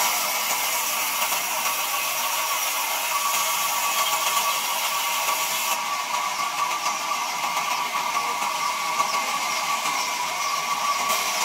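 Large sawmill band saw running steadily as it rips a log into planks, a constant whine under a bright hiss that eases a little about halfway through.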